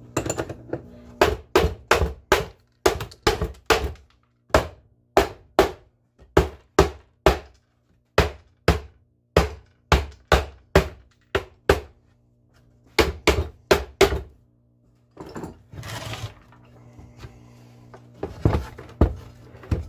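A run of sharp wooden knocks and taps, irregular at about two a second with short pauses, as seat hardware is worked loose and set down on a wooden workbench; a few louder knocks come near the end. A faint steady hum lies underneath.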